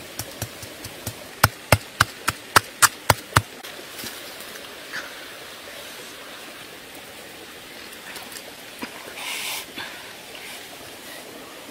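Machete chopping into the ground at the base of a plant: about eight sharp strikes in quick succession over two seconds, then a steady faint hiss with a few light clicks.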